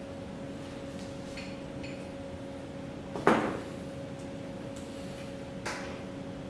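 Metal tools being handled on a workbench: a few light clicks and one loud clank about three seconds in, over a steady electrical hum.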